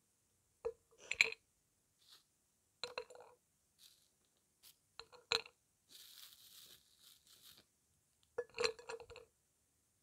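Dry lumps of blue Uzbek edible clay set down on a hard plate, clinking against it and against each other in several separate knocks. About six seconds in, a clear plastic bag rustles briefly as a hand digs into the clay in it.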